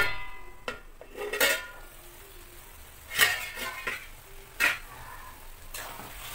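Stainless steel lid clanking and ringing against a steel kadhai, then a few knocks of a flat spatula against the pan as thick carrot halwa is stirred.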